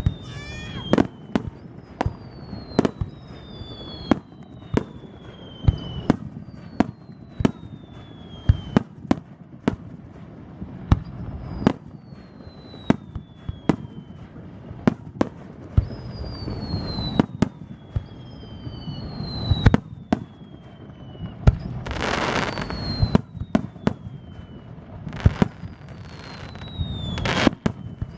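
Aerial fireworks display: a rapid series of sharp shell bursts and bangs with echoing tails, over repeated falling whistles. Dense crackling bursts come about two-thirds of the way in and again near the end.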